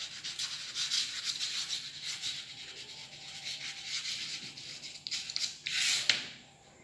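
Chalk writing on a blackboard: a run of short scratchy strokes as letters are formed, with a longer, louder stroke about six seconds in as the heading is underlined.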